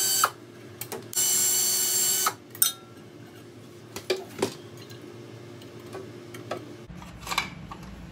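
A power driver spinning out cover screws whines briefly at the start, then again for about a second. Light clicks and knocks of screws and sheet-metal covers being handled follow.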